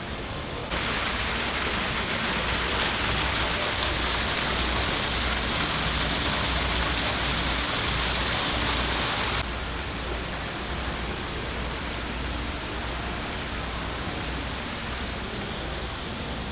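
Water falling and splashing into a pool from an indoor artificial waterfall. It is a steady rush that jumps abruptly louder and hissier about a second in and drops back just as suddenly about nine seconds in, leaving a softer steady rush.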